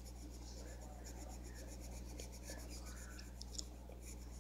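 Pencil scratching on paper in quick, even back-and-forth strokes, shading in a colouring-book page, over a steady low hum.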